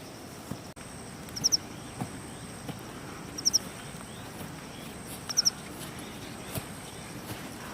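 A bird calling in forest, a quick two- or three-note high chirp repeated about every two seconds, over a faint steady high insect tone and a few soft knocks.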